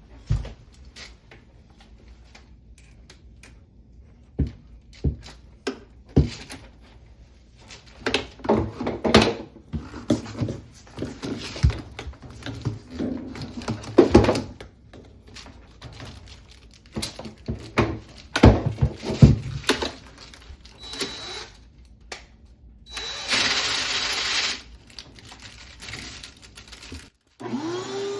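Irregular clicks, knocks and scrapes of hands-on work with parts and tools, with a short hiss a little before the end. Just before the end a motor hum starts, rising briefly in pitch as it comes up to speed.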